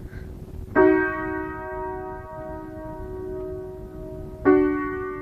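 Acoustic piano: two chords struck about four seconds apart, each sharp at the start and left to ring and fade slowly.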